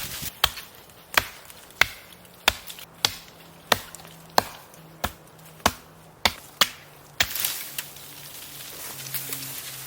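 Wood being chopped with an axe: a steady run of about eleven sharp strikes, roughly three every two seconds. After about seven seconds the strikes stop and a longer rough noise follows.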